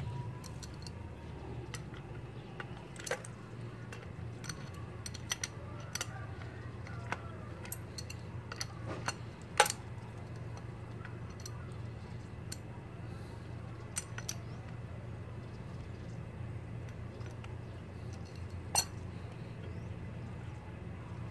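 Scattered metallic clicks and clinks of an adjustable wrench and metal pump fittings being handled during a pressure washer repair. The sharpest knocks come about ten seconds in and again near the end.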